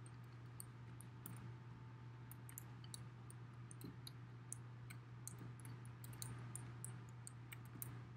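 Faint, irregular light clicks and taps of a hand tool dabbing paint onto roofing tar paper, over a steady low hum.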